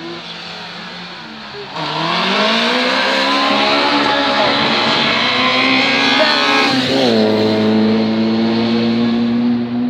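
Rallycross car engine revving hard, its pitch climbing steadily for about five seconds. About seven seconds in the pitch drops suddenly and then holds a steady high note, which cuts off near the end.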